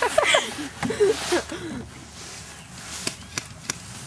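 Brief voices in the first second and a half, then three sharp snaps about a third of a second apart, about three seconds in: airsoft guns firing.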